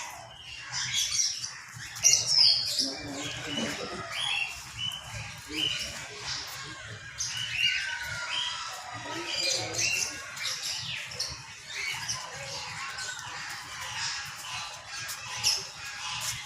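Small birds chirping and squawking in a long run of short, high calls that come several a second at times.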